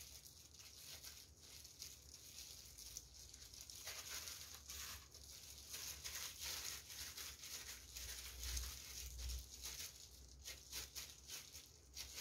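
Thin disposable plastic gloves crinkling and rustling with many small irregular crackles as gloved hands knead and shape soft mashed kabocha squash dough. A soft low thump comes about eight seconds in.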